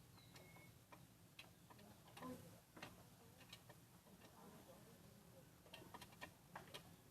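Faint, irregular clicks and taps of screws and a hand tool on metal parts being fitted to an old washing machine, with a cluster of clicks near the end.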